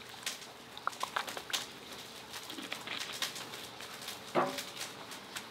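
Plastic squeeze bottle of lemon juice squirting and sputtering onto sliced onions in a bowl, with many small clicks and crackles from the bottle; quiet.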